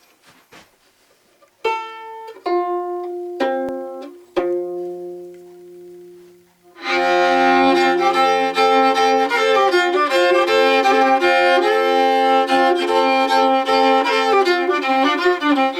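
Homemade box fiddle, cross-tuned to a lowered Calico tuning: four single notes plucked and left to ring, then from about seven seconds the homemade bow drawn across the strings in a steady old-time tune, sounding two strings at once.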